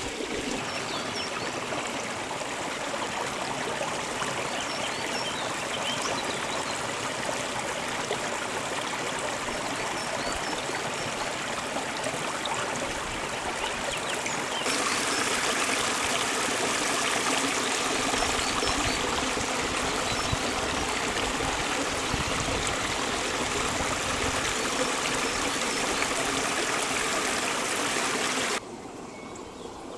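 Water running in a small stream, a steady trickle and babble. About halfway through it becomes louder and brighter, and shortly before the end it drops abruptly to a much quieter level.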